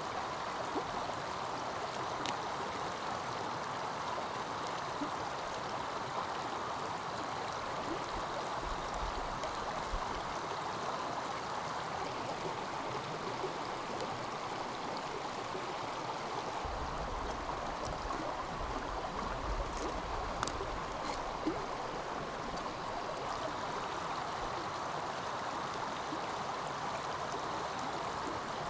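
A stream flowing steadily, with a few faint clicks and a low rumble now and then.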